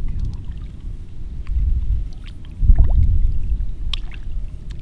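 Wind buffeting the microphone: a low, uneven rumble that swells about two and a half seconds in, with a few faint scattered ticks above it.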